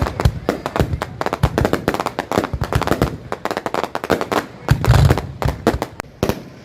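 Fireworks going off: a dense, rapid crackle of many sharp bangs, with a heavier boom about five seconds in.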